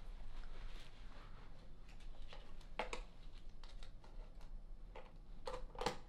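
Small clicks and taps of a clear plastic jar being handled. There is a sharper click about halfway through and two more close together near the end, each with a brief ring.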